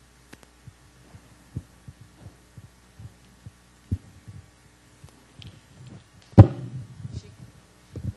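Microphone handling noise over a steady low sound-system hum: scattered soft low thumps, with one much louder thump about six and a half seconds in.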